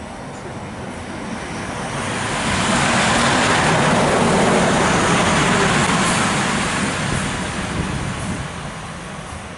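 FS E.444 electric locomotive (444-056) passing close by: a rushing running noise that swells to its loudest about halfway through and fades as it moves away.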